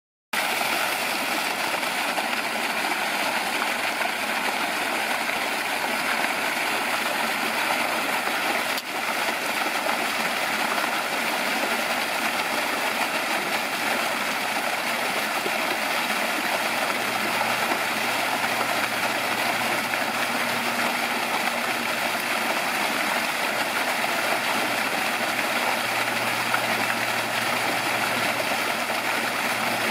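Water pouring steadily from an artificial rock waterfall into a shallow pool, a continuous splashing rush.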